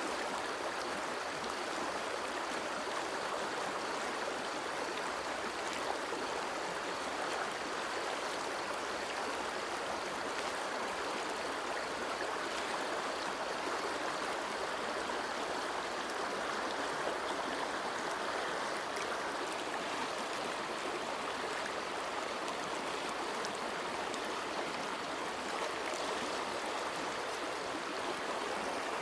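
River water flowing over stones, a steady, soft rushing and babbling.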